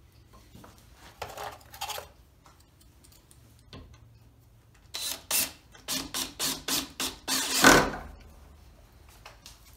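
Cordless drill run in a quick series of short trigger bursts into a wooden post, about six in a row with the last one longest and loudest. Before it come a few softer knocks and rubs of tools being handled.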